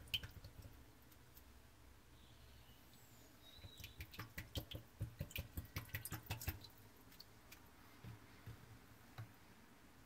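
Faint irregular clicks and light knocks for about three seconds, starting about a third of the way in, as a hand handles the filter in the sump of an open dishwasher. A few single clicks follow, over a faint low hum.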